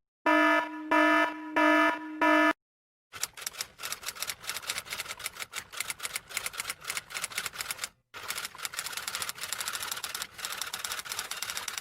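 A pulsing electronic alarm tone repeating about four times, then rapid typewriter keystrokes clattering, with a brief pause about eight seconds in.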